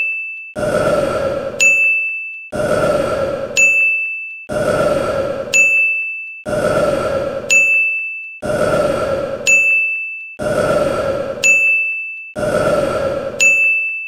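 A recorded burp followed at once by a bright ding, looped over and over. The pair repeats about every two seconds, some seven times, and each burp fades out before the ding rings.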